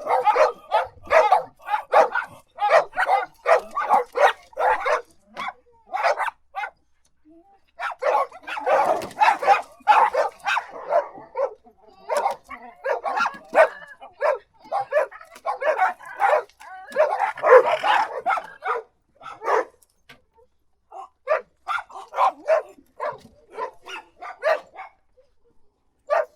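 Dogs barking rapidly in bouts, several barks a second, with short pauses about seven seconds in, about twelve seconds in and again about twenty seconds in.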